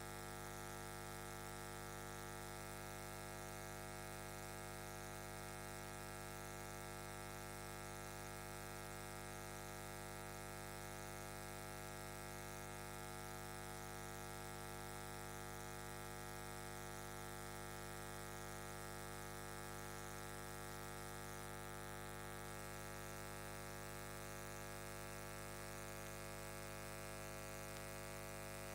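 Steady electrical mains hum and buzz, unchanging in pitch and level.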